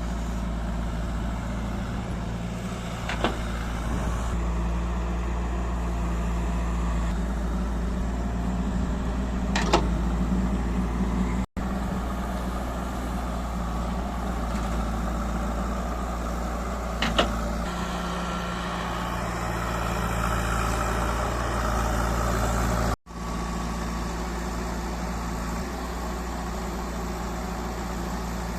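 JCB 3DX backhoe loader's diesel engine running steadily while working, swelling slightly at times, with three sharp knocks spread through. The sound cuts out for an instant twice.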